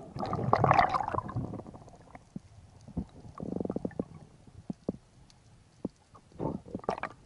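Underwater sound picked up through a diving camera: a loud gurgling burst in the first second and a half, then scattered sharp clicks, a short fast run of clicks in the middle, and another gurgling burst near the end.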